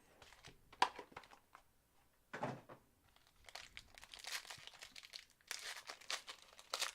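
Plastic wrapping crinkling and tearing as a trading-card box and pack are opened, starting with a few light clicks and a dull knock about two and a half seconds in, then dense crinkling through the second half.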